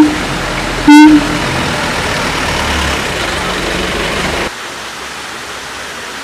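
Siamang call: a longer pitched note ending right at the start, then a short, steady pitched note with many overtones about a second in, over a steady background hiss that drops off about four and a half seconds in.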